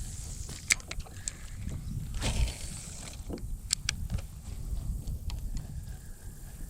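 A few sharp clicks and knocks from handling gear in a kayak, over a steady low rumble, with a brief swish about two seconds in.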